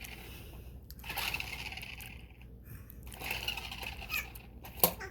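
Plastic toy remote-control car being handled, its wheels spinning and rattling in two stretches, with one sharp knock near the end.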